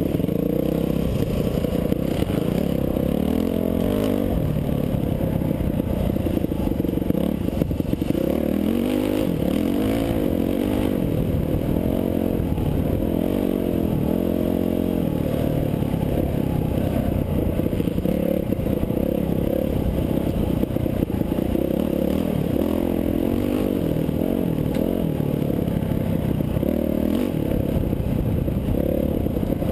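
Dirt bike engine revving up and down again and again as it is ridden along a rough dirt trail, with rattle and scrape from the bike underneath.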